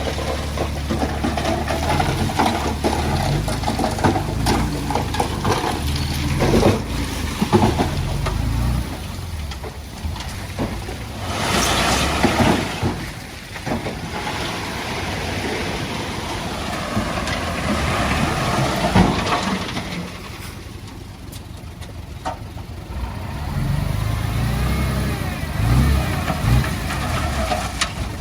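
Diesel engines of heavy earthmoving machinery, a small bulldozer and a dump truck, running under changing load, with scattered knocks and clanks and a brief rushing noise about twelve seconds in.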